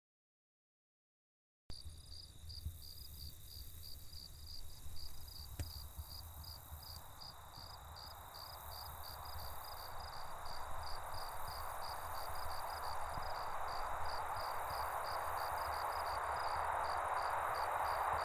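Crickets chirping in a steady, even pulse of about two to three chirps a second over a low rumble. It starts after a moment of dead silence, and a hissing wash of noise builds slowly through the second half.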